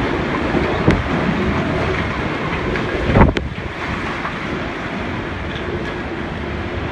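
Typhoon-force wind buffeting the microphone in a steady rushing roar, with one heavy thump about three seconds in and a lighter knock about a second in.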